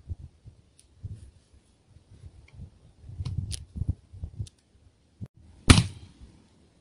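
A single loud gunshot about three quarters of the way through, ringing out briefly afterwards, over low gusts of wind on the microphone.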